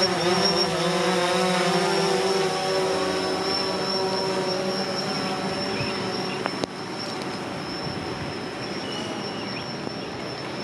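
DJI Phantom 4 Pro quadcopter's propellers buzzing, the pitched hum fading over the first few seconds as the drone flies away, over a steady hiss of rain. A single sharp click comes about two-thirds of the way in, after which the sound is quieter.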